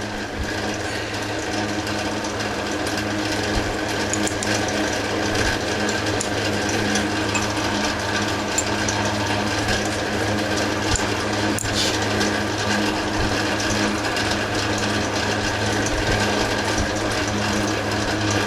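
Electric bench grinder running steadily while a lathe tool bit is dressed against the wheel, sharpening a bit that had started cutting a little rough.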